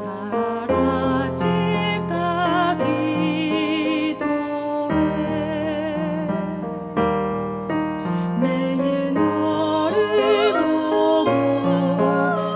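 A woman singing a slow song with vibrato, accompanied by sustained chords on a keyboard.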